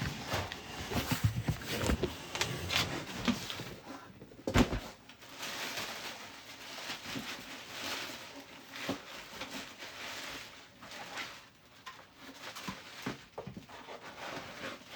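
Thick packing foam and a cardboard box rubbing and scraping as a part is worked out of the box, with scattered knocks of handling; the loudest knock comes about four and a half seconds in.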